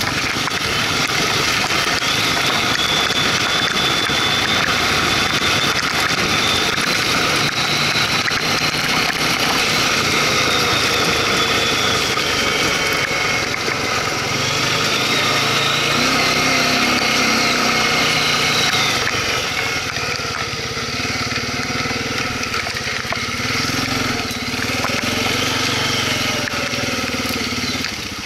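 Quad (ATV) engine running as the machine climbs a rough trail, its pitch rising and falling with the throttle, easing off somewhat about two-thirds of the way in.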